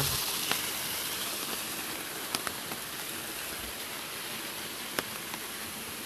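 Steady rushing of a waterfall, easing off over the first couple of seconds and then holding level, with a few faint ticks.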